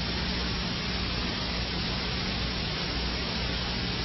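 Steady hiss with a low electrical hum: the background noise of an old analogue video recording, with no other sound standing out.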